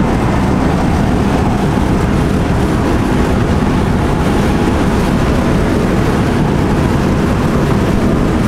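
1959 Volkswagen split-window panel van driving at a steady cruise of about 40 mph, heard from inside the cab: a steady engine and road drone with no breaks or changes.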